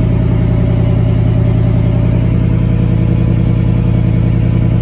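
2016 Ford F-150's 5.0-litre Coyote V8 idling steadily through a muffler-deleted exhaust, a deep, even note.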